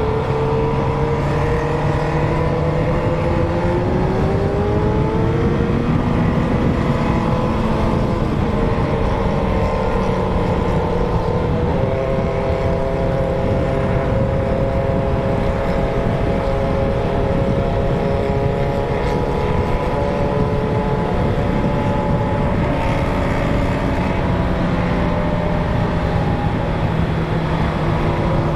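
Several inline-four sport motorcycles with straight-through 4-into-1 exhausts running together, their engine notes holding fairly steady and drifting slowly up and down in pitch, with a rise about four to six seconds in.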